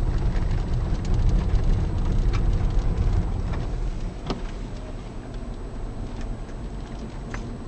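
Car driving, heard from inside the cabin: a steady low rumble of road and engine noise that eases off somewhat about halfway through, with a few faint ticks.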